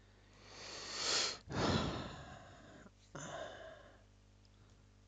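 A man breathing audibly near the microphone: three breath sounds, the first swelling over about a second and stopping sharply, the second the loudest and fading away, the third shorter about three seconds in.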